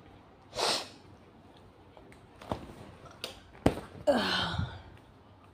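A woman's breathy vocal sounds: a short sharp burst of breath, a few light clicks, then a loud breathy outburst falling in pitch.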